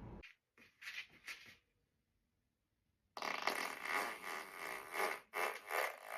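A person farting: two or three short bursts about a second in, then after a pause a longer fart of about three seconds that swells and fades in several pulses.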